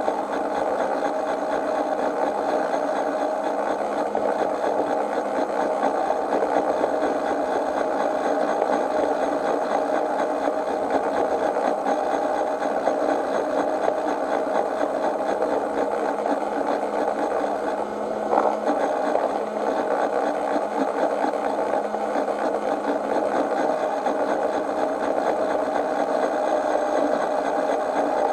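Miniature ride-on railway train running steadily along its track: the even mechanical running noise of its drive and wheels on the rails.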